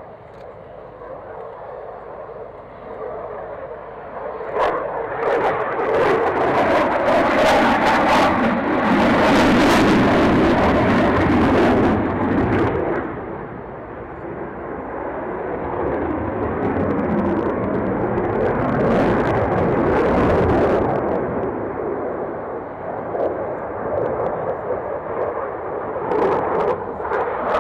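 Aircraft engine roar that swells a few seconds in, stays loud for several seconds, eases off, then rises again twice.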